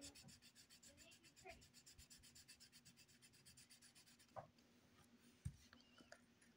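Faint scratching of a coloured pencil shading on paper, with two soft knocks in the second half.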